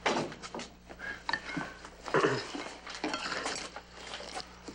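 Metal spoons clinking and scraping against crockery bowls as two people eat, in a quick irregular run of small clicks, the loudest cluster about two seconds in.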